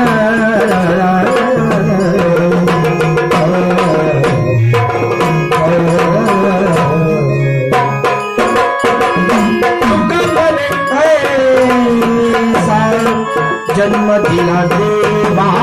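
Gondhal devotional music: a sambal, the Maharashtrian pair of stick-beaten drums, playing a dense, fast rhythm under a sung abhang melody. The drumming briefly thins twice, about halfway through and again near the end.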